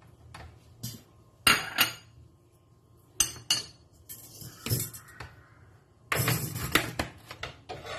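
Dishes and kitchen utensils clattering and clinking against a plate, a tray and a metal grill pan, in short separate bursts, then a longer run of clatter about six seconds in.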